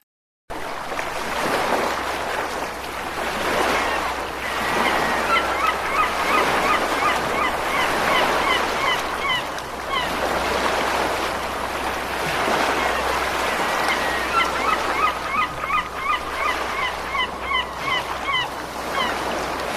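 Surf washing in swells every few seconds, starting suddenly about half a second in. Over it, a flock of birds calls in quick, repeated short chirps in two stretches.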